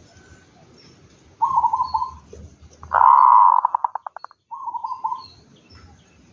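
Zebra dove (perkutut) cooing in the song style keepers call 'bedah karang'. It gives a short coo, then a loud coo about three seconds in that ends in a quick run of stuttering notes, then another short coo. Faint high chirps from small birds are heard behind it.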